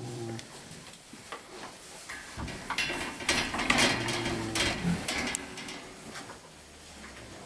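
Pigs rooting and shuffling through fresh wood-shaving bedding: loose rustling and scratching that grows loudest in the middle, with low grunts near the start and again about four seconds in.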